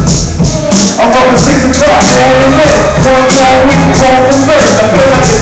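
Live hip-hop performance over a PA: a loud beat with a bass line, and a vocal on the microphone that comes in about a second in.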